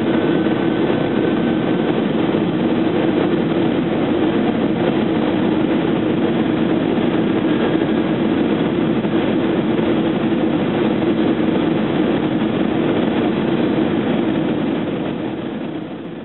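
Steady cabin noise of an Airbus A320 descending on approach: a mix of engine and airflow noise with a steady low hum. It gets somewhat quieter about a second before the end.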